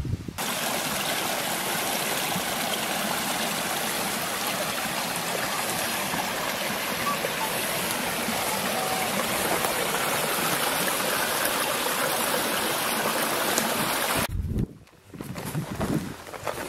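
Small rocky brook running over stones: a steady rush and burble of water that cuts off suddenly near the end, followed by a brief low rumble.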